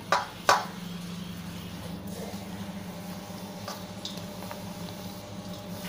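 Two sharp clinks of steel plates touching, about half a second apart, then the soft sound of a crumbly mawa-and-coconut mixture being scooped by hand from a steel plate into a steel tray, over a steady low hum.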